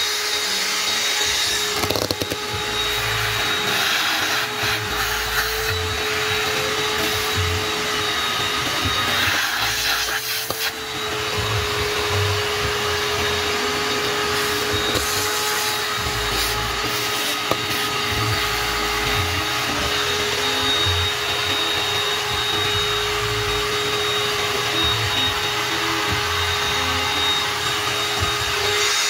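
Shop vacuum running with a steady motor whine as it sucks carbon buildup and debris out from around a diesel injector hold-down in the cylinder head. The tone dips briefly about ten seconds in.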